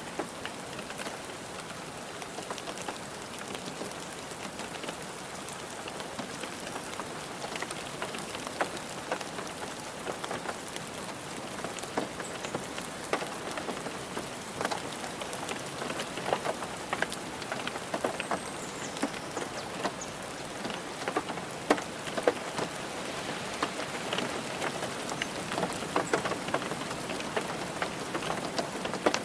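Steady rain drumming on a car roof, a constant hiss with many distinct drop impacts, the heavier drops growing more frequent in the second half.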